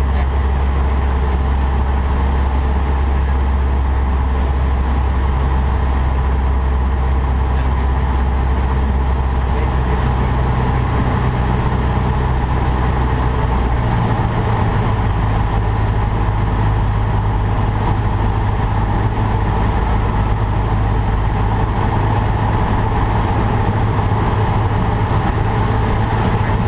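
Cessna 152's four-cylinder Lycoming engine and propeller droning steadily in the cockpit, its low note stepping up in pitch about halfway through.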